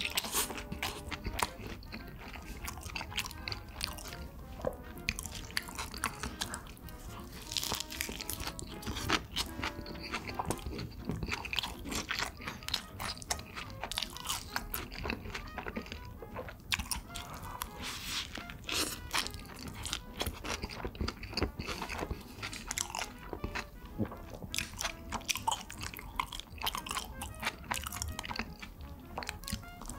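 Close-miked eating: biting and chewing a cheeseburger with lettuce and french fries, a steady run of crisp crunches, wet smacks and mouth clicks.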